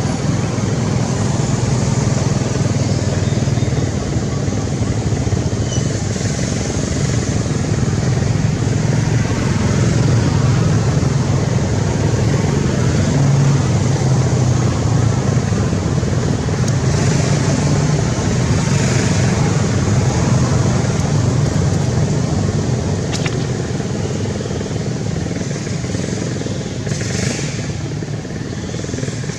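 Steady low rumble of motor traffic, with a single faint click about two-thirds of the way through.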